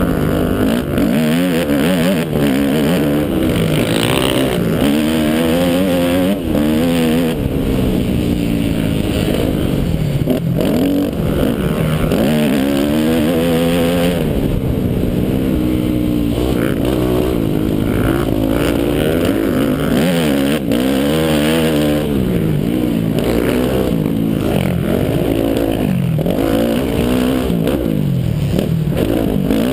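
2005 Yamaha YZ250F's 250cc four-stroke single-cylinder engine at full race pace, heard from the rider's helmet, revving up and dropping back over and over as the bike is ridden around a motocross track.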